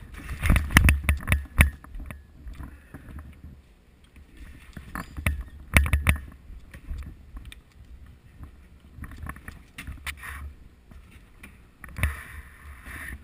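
Knocks, clicks and low thumps from an airsoft player moving with his rifle and gear, in four short clusters, the loudest near the start.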